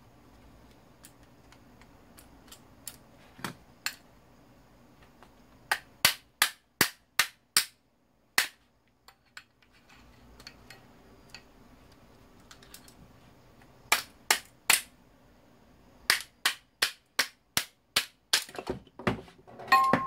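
Small hammer striking the metal housing of a 1998 LG FW-1621 wall-fan motor. The blows come in three runs of quick sharp knocks, about two or three a second, with pauses between, as the end housing is knocked loose from the copper-wound stator.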